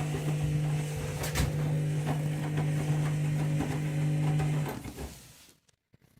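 Candy washing machine running mid-cycle: a steady low electric hum with light rattling and ticking, which stops about five seconds in.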